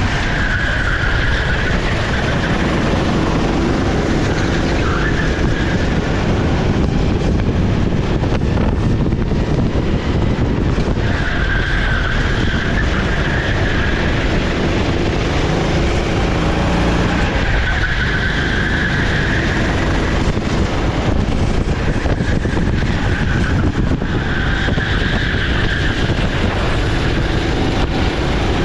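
Racing kart's 390 cc single-cylinder four-stroke engine (Sodikart SR4) running hard at racing speed, its note rising and falling through the lap. A higher squeal comes and goes every few seconds, typical of the tyres scrubbing through corners.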